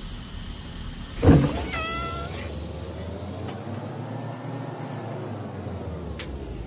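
A thump about a second in, followed by a short cat meow; a faint tone slowly rises and falls in the background.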